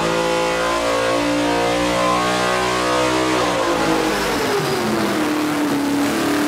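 Hennessy Venom F5's 6.6-litre twin-turbo V8 engine held at high revs, then the revs falling away about three and a half seconds in and settling at a lower note.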